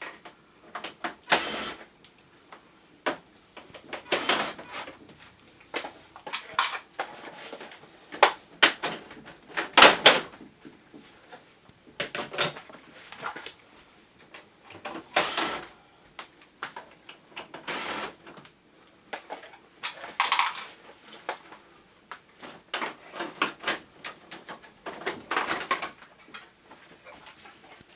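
Irregular clicks, knocks and scrapes of plastic covers and parts being unclipped and handled while a Panasonic Eolia wall-mounted air conditioner is taken apart.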